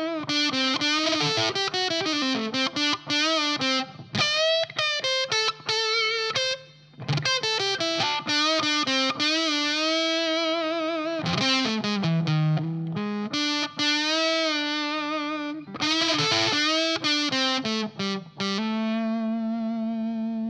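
Electric guitar played through a Sola Sound MkIV Tone Bender fuzz pedal into a Marshall amplifier: a slow blues lead of held single notes with string bends and wide vibrato, broken by short pauses, ending on a long held note.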